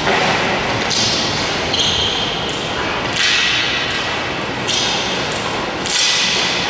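Repeated scraping and swishing rushes, each starting suddenly, from a dancer's body and lead-coated gloves and shoes sliding and dragging across the floor, with a brief high squeal about two seconds in.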